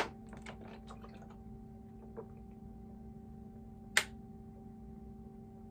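Thin plastic water bottle clicking and crackling as someone drinks from it: a sharp click at the start, a few small clicks over the next second, and another sharp crackle about four seconds in, over a faint steady hum.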